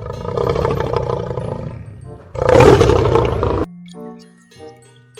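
Lion roar sound effect, twice, the second louder and cutting off suddenly about three and a half seconds in. Then soft plinking notes of a light tune.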